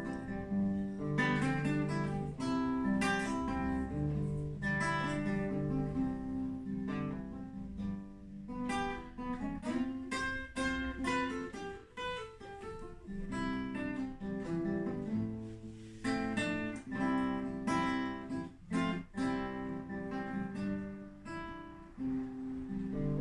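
Acoustic guitar played solo, a continuous instrumental passage of strummed chords and picked notes with no singing.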